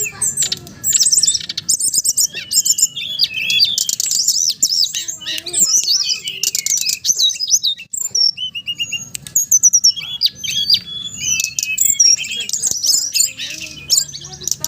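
Songbird singing a fast, unbroken run of varied chirps, whistles and trills. It is a lure recording, played so that a kept bird of the same kind starts singing.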